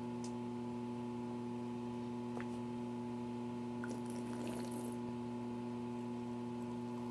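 Steady electrical hum made of several constant tones, with a few faint ticks and a soft, brief hiss about four seconds in.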